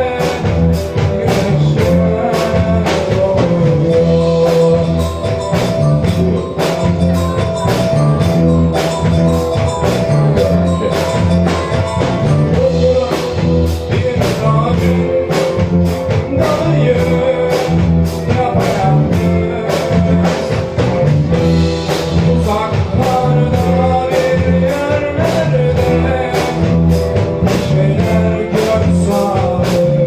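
Live school rock band playing: electric guitars and electric bass over a steady drum-kit beat.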